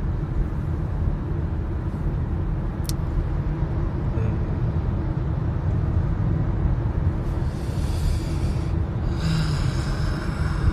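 Steady low rumble of a car on the move, heard from inside the cabin. There is a single light click about three seconds in, and a hiss that swells for the last few seconds.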